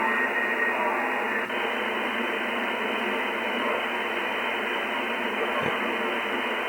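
Shortwave receiver static through a software-defined radio tuned in upper sideband: a steady, narrow-band hiss with no clear voice in it.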